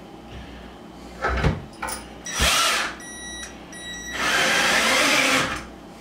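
Power drill driving screws into the top of a wooden bunk bed headboard, pulling them tight against the dowels: it runs in short bursts, then for about a second and a half near the end.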